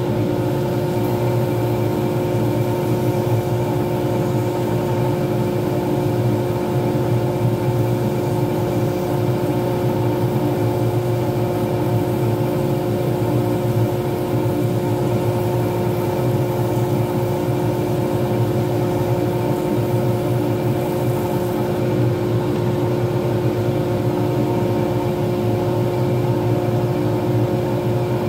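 Lathe running at a steady speed, its motor giving a constant hum with several steady tones, while the resin pen blank turning on it is wet-sanded and then wiped.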